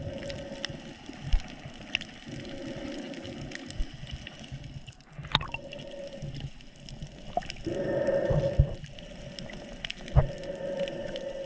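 Muffled water sloshing and churning picked up by a GoPro during snorkeling, with a hum that comes and goes and scattered sharp clicks and knocks. It swells louder about eight seconds in.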